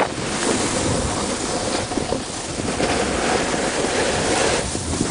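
Steady rushing wind noise on the microphone of a camera moving down a ski slope.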